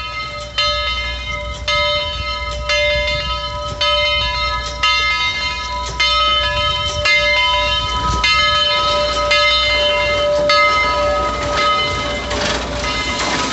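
Bell of Southern Railway 4501, a 1911 Baldwin Mikado steam locomotive, ringing steadily about once a second as the engine pulls into the station. Near the end, hissing and running-gear noise swell as the locomotive passes close by.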